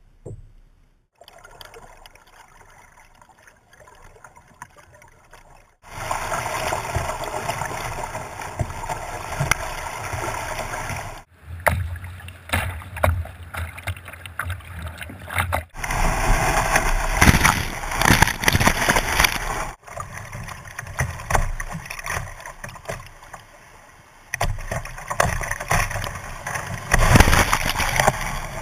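River water rushing and splashing around a kayak, heard through several cut-together clips, with the first few seconds much quieter. Near the end water splashes hard over the kayak and the camera in a rapid.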